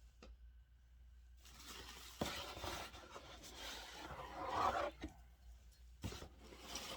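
Packaging rustling and scraping for about three and a half seconds, loudest just before it stops, as parts are unpacked from a box, followed by a single knock.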